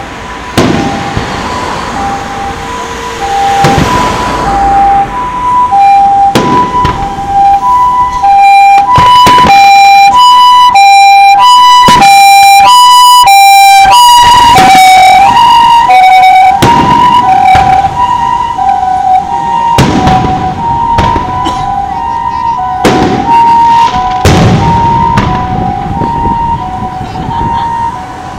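Ambulance's two-tone hi-lo siren, alternating steadily about once a second, growing loud as it comes close and dropping slightly in pitch as it passes about halfway through. Aerial fireworks shells burst with dull booms several times around it.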